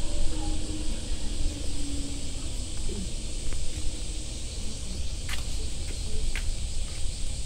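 Steady high-pitched insect drone in warm outdoor air, over a low rumble. A couple of light clicks come about five and six seconds in.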